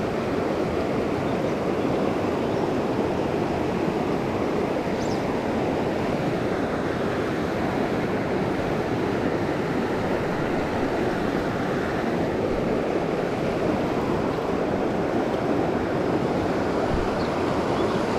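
River water rushing steadily over a shallow rocky riffle.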